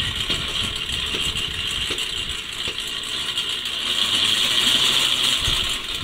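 Cicadas buzzing in a steady, high-pitched chorus that swells about two thirds of the way through.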